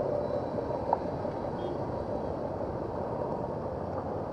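Steady rumbling noise of an electric locomotive running slowly along waterlogged railway tracks, with a single sharp click about a second in.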